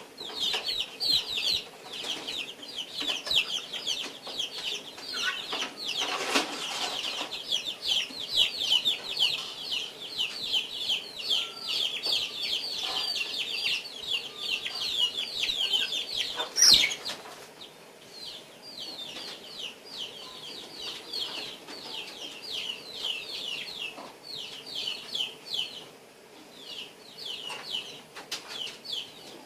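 Guinea fowl calling in a rapid run of short, high, repeated calls, several a second, that thins out after a sharp knock about two-thirds of the way through.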